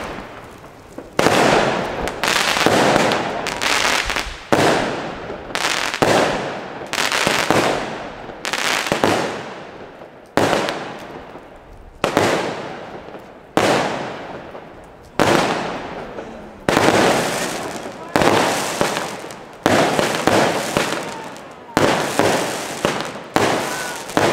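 Lesli 'Böser Opa' Pyromould fireworks battery firing shot after shot, about one a second: each a sharp report followed by a fading crackle of the burst.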